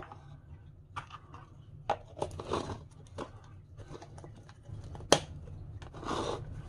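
A plastic tub of wipes and a damp wipe being handled: scattered light clicks and taps, two spells of crinkly rustling from the wipe, and one sharp click a little after five seconds in.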